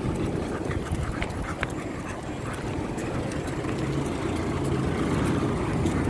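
Steady low rumble of street traffic, with wind buffeting the microphone and faint scattered ticks.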